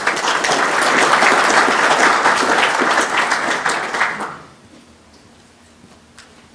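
Audience applauding, a dense clapping for about four seconds that then dies away.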